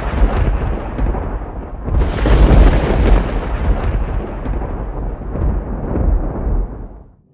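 Deep, loud rumbling like thunder: a second rumble swells about two seconds in and then dies away slowly near the end.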